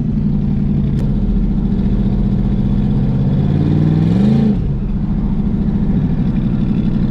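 Turbocharged Hemi V8 of a street truck, heard from inside the cab while driving at low revs, with a steady note. About four seconds in, the engine speed briefly rises and drops back.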